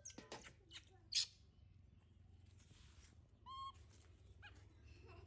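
A few light splashes and drips of water from a steel bath basin, then a baby monkey gives one short, high squeal a little past halfway, with a fainter squeak about a second later.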